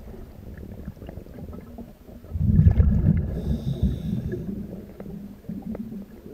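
Scuba diver's exhaled air bubbles from the regulator, heard underwater: one long exhalation starting just over two seconds in and lasting about two seconds, with low water noise around it.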